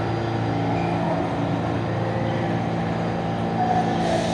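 Subway train standing at the platform, a steady hum of several held tones over the rumble of the station.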